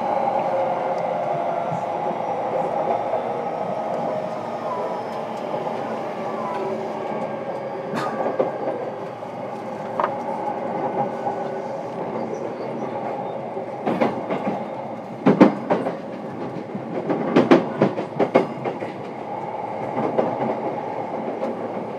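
Running sound heard inside a JR East E233-7000 series motor car, a steady rumble of wheels on rail. Sharp wheel clacks over rail joints come once or twice early on, then in a run of several in a row past the middle.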